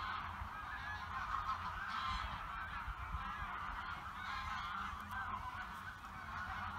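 A large flock of birds calling continuously, many honking calls overlapping one another, over the low rumble of the boat under way on the water.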